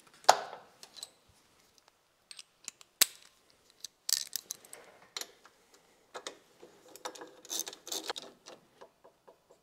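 Irregular metallic clicks and ticks of a 6mm Allen tool tightening a long bolt through a steel bracket, with one sharp click about three seconds in and quick flurries of clicks around four seconds in and again near eight seconds.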